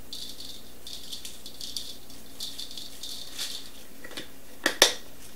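Crushed red pepper flakes shaken out of a spice jar's shaker top, rattling in a series of short bursts. Two sharp clicks come near the end as the jar is closed.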